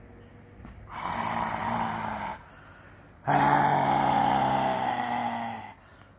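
Long-haired tortoiseshell cat growling: two long, steady growls with a short gap between them, a warning at being handled.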